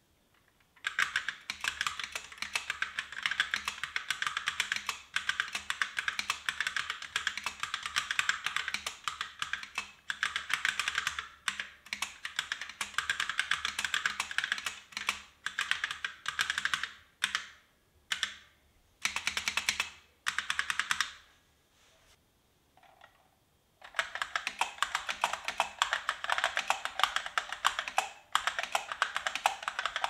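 Typing on a Micro Switch SW Hall-effect keyboard, uncased and lying flat on a desk: a rapid stream of key clicks in runs of several seconds with short breaks. After a longer pause about three quarters of the way through, the typing resumes with a fuller, lower-sounding click.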